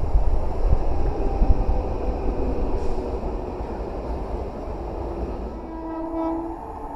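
Pink Medha EMU local train rolling into the station with a low, steady rumble that slowly fades. About six seconds in, a train horn sounds one short note.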